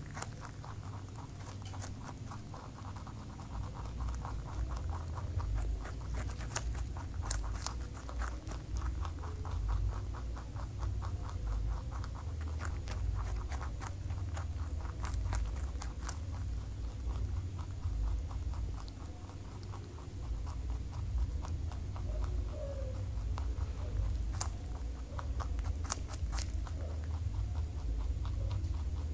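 Rabbit chewing raw bell pepper and carrot close to a small microphone: a fast, uneven run of small crunching clicks, with a low rumble underneath.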